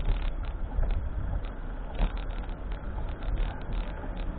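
Wind rumbling on the microphone over outdoor traffic noise, a steady uneven rumble with no clear single event.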